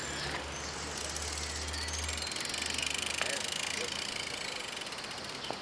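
Bicycle freewheel hubs ticking rapidly as road bikes coast up, with a low hum that fades about two seconds in.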